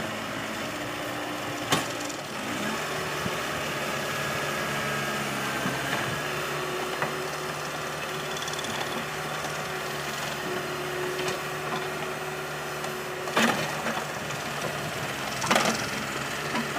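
Case backhoe engine running steadily while the machine works, with a few sharp wooden knocks as ties are picked up and bump together, about two seconds in and twice near the end.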